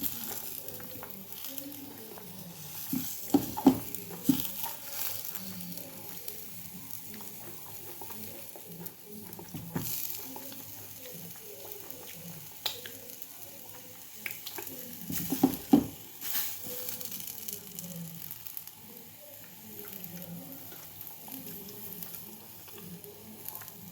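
Close-miked eating of a crisp, juicy pear: two loud clusters of crackling bites, one about three to four seconds in and one about fifteen seconds in, with softer wet chewing in between.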